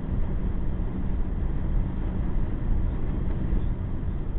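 Steady low road and engine drone inside a moving car's cabin, picked up by a dashcam, with a faint even hum under the tyre noise.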